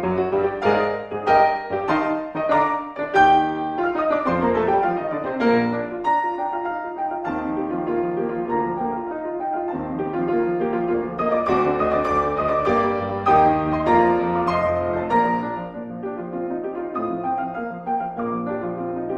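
Background piano music: a flowing line of notes and chords.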